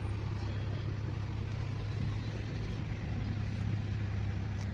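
Car engine running at low speed, heard from inside the cabin as a steady low hum while the car reverses and pulls away.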